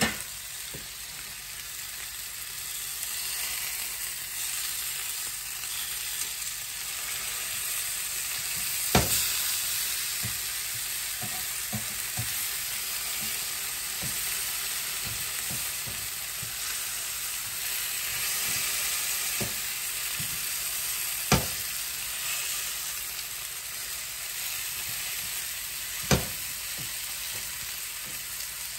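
Chicken pieces sautéing in butter in a frying pan: a steady sizzling hiss. A few sharp knocks cut through it, three louder ones about a third of the way in, about three quarters in and near the end, with smaller clicks between.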